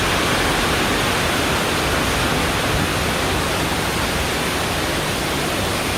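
Heavy monsoon rain pouring down: a loud, steady, dense hiss of downpour.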